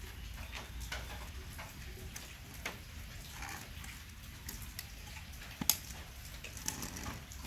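Irregular light ticks and taps, with one sharp click a little past the middle.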